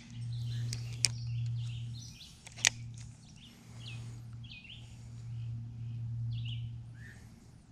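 Small birds chirping off and on over a steady low hum, with two sharp clicks in the first three seconds.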